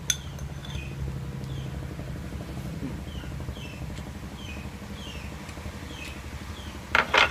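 A bird chirps a short falling note about once or twice a second over a steady low hum. Near the end come two sharp clinks of chopsticks against a ceramic rice bowl.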